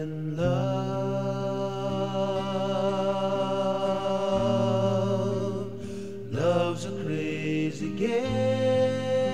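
Background music: a song with long, slightly wavering held vocal notes over a steady accompaniment, with a short break about six seconds in before the next note.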